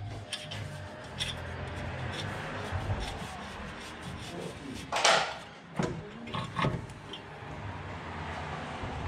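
Rusty steel exhaust muffler being worked into place on the mower's engine: scattered clicks and rubbing, with a loud metal scrape about five seconds in and two shorter ones soon after.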